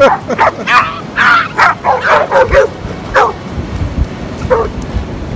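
A small dog yapping: a fast run of short, high-pitched barks, about a dozen in the first three seconds, then one more bark near the end.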